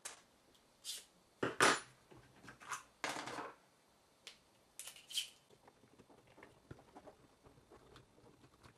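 Light clicks and clinks of small tools and parts on a 1/16 RC truck chassis while its motor is being unscrewed and taken out. Several sharp knocks and a short scrape come in the first few seconds, then only faint ticks.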